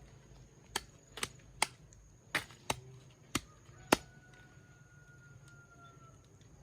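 A blade chopping: seven sharp, irregularly spaced strikes over about three seconds, then they stop.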